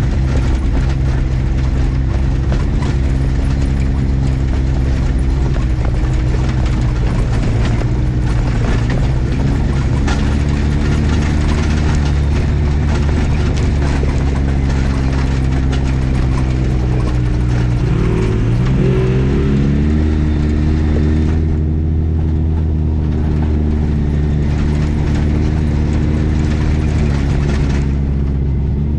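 Polaris RZR XP 1000 side-by-side's parallel-twin engine running steadily under way on a dirt trail. Its pitch drops briefly about two-thirds of the way through, then climbs back.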